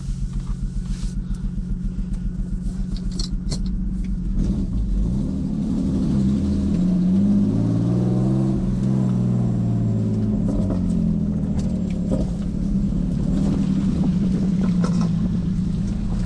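Turbocharged BMW E46's engine idling with an even pulse, then the revs rise and fall back over a few seconds before it settles into a steady run.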